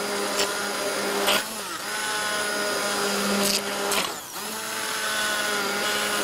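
Hand-held immersion blender running submerged in a pot of braising sauce, pureeing the softened onions into it to thicken the sauce. Its steady motor whine dips twice, about a second and a half in and again about four seconds in, then picks back up.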